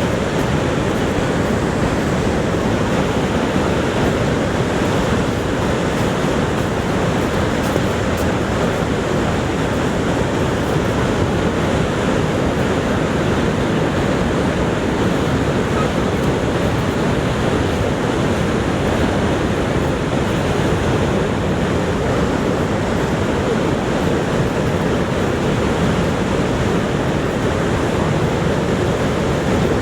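Niagara Falls: a steady, unbroken rush of falling water.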